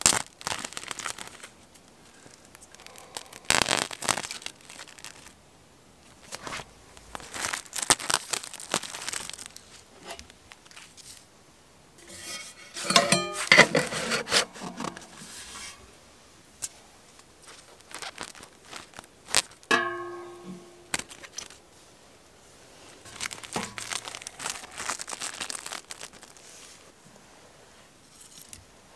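Plastic cling-film wrap crinkling and tearing in irregular bursts, with sections of steel stove pipe scraping and clanking as they are fitted together; one knock rings briefly about twenty seconds in.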